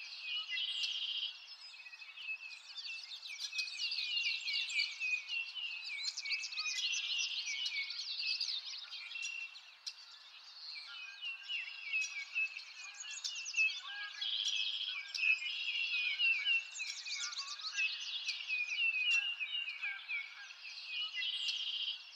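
Chorus of songbirds, many short chirps and trills overlapping continuously with no low sound beneath them.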